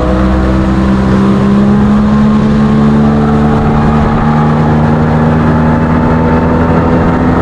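A motorboat's engine running steadily underway, its pitch creeping slowly upward, over a constant rush of wind and water.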